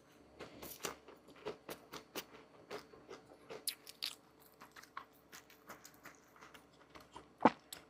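Irregular crisp crunches and clicks, a few a second, with one sharper, louder one near the end: someone biting into and chewing crunchy food.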